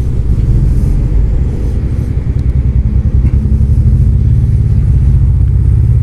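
Steady low wind rumble and road noise from a Zero DSR electric motorcycle under way, buffeting an on-board camera microphone.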